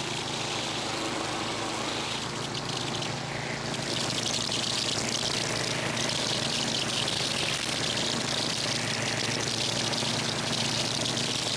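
DR trimmer mower's Briggs & Stratton engine running steadily at speed with its trimmer line spinning, a loud whirring hiss that grows stronger about four seconds in.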